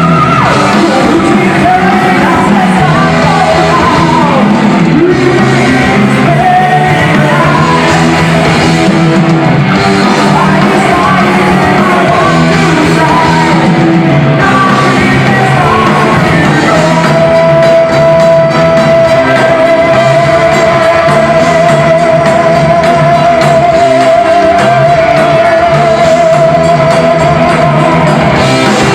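Heavy metal band playing live, loud and dense, with singing and shouted vocals over guitars and drums. About halfway through, one long high note with vibrato starts and is held to the end.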